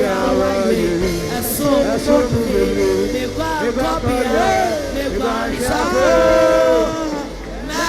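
Gospel praise singing with band accompaniment: voices singing a melody over a steady bass line.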